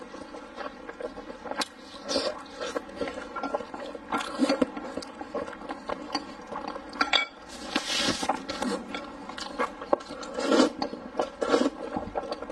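A person eating pork and noodles: chewing and lip-smacking, slurping noodles, and chopsticks scraping and clicking against a large pan.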